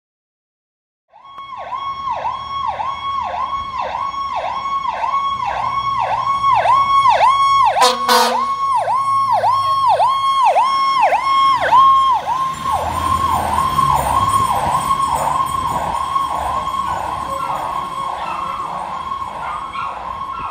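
Fire engine's electronic siren sounding a fast yelp, sweeping up and down about twice a second, starting about a second in, with a brief loud blast about eight seconds in and a low diesel rumble underneath. The siren grows fainter in the second half as the engine passes and moves away.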